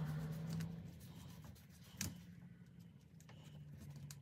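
A screwdriver turning the screw of a hose clamp on a rubber fuel hose: faint scraping with small ticks and one sharper click about two seconds in. A steady low hum runs underneath.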